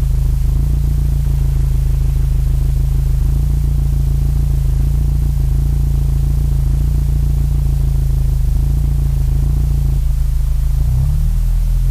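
Acura TSX with a Yonaka cat-back exhaust idling, a steady low exhaust drone with a noisy hiss over it. The note shifts slightly near the end.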